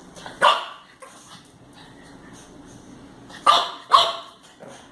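A pug barking three times: one bark about half a second in, then two quick barks close together about three and a half seconds in.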